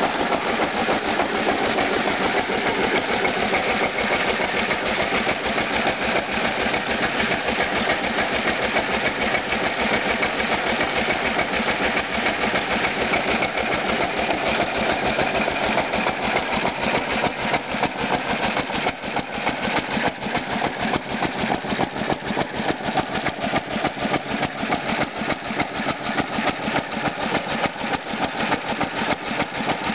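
Unrestored Cushman hit-and-miss engine running steadily and driving a Hardie water pump, a fast, even mechanical clatter.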